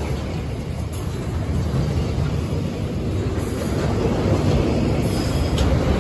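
Freight train of box wagons rolling past close by: a steady rumble of steel wheels on the rails, growing gradually louder.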